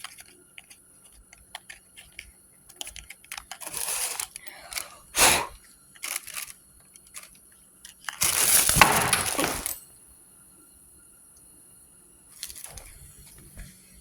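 Metal clicks, knocks and scraping of hand tools as an ATV spark plug is taken out, with one sharp crack about five seconds in. A rushing noise lasts about a second and a half around the middle.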